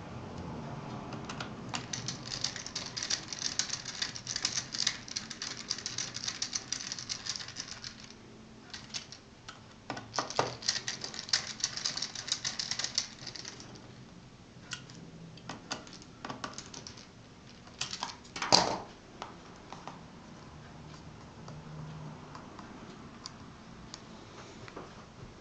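Rapid light clicking and tapping in two runs, one of about six seconds and one of about three, then scattered clicks and a single sharper click later on.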